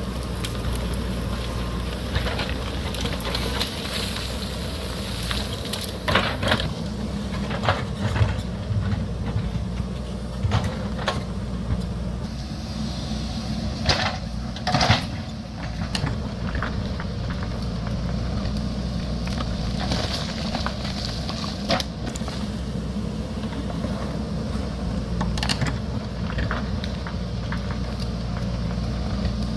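JCB backhoe loader's diesel engine running steadily under load, with scattered knocks and clatter of rock and stones.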